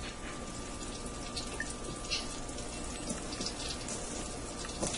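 Faint handling sounds as raw chicken is dripped from an egg wash and pressed into seasoned flour in a stainless steel bowl, a few soft brief rubs and taps over a steady low hiss.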